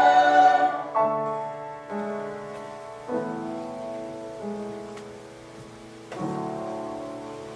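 Piano playing slow chords, one struck about every second and left to ring and fade, as a choir's held chord dies away in the first second; an instrumental interlude between sung phrases of a hymn.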